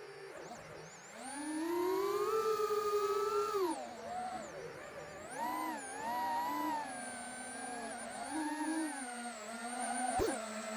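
iFlight DC3 3-inch FPV micro quadcopter, its four brushless motors and propellers whining, the pitch rising and falling with the throttle. It dips low at the start, climbs about a second in, drops near the middle, then wavers.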